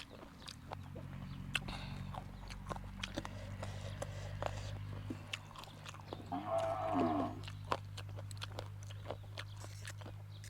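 A cow moos once, briefly, about six seconds in. Around it are close crunching and chewing clicks from someone eating chicken feet, over a steady low hum.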